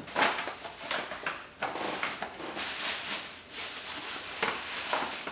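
Tissue paper and a shiny gift bag rustling and crinkling as a present is pulled out, in uneven bursts.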